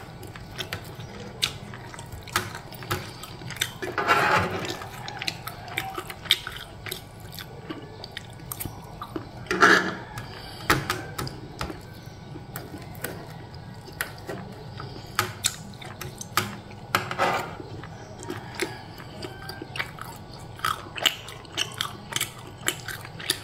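Metal spoon and fork clicking and scraping against a plastic tray while picking up pieces of beef rendang, with chewing between. Many small clicks, plus three longer scrapes about four, ten and seventeen seconds in.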